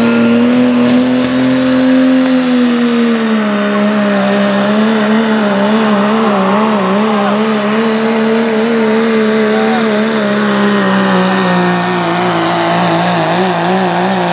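Diesel engine of a second-generation Dodge Ram pulling truck running flat out under load as it drags the pulling sled. Its pitch sags a little a few seconds in and again near the end, and wavers quickly up and down as the truck bounces. A high thin whistle rises in the first second and then holds steady over the engine.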